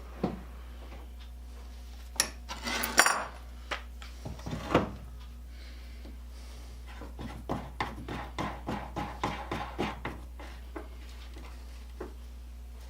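Knocks and clatter of metal grinder parts handled on a workbench, then a few seconds of quick rubbing strokes, about three a second, as the old hand-crank grinder is cleaned.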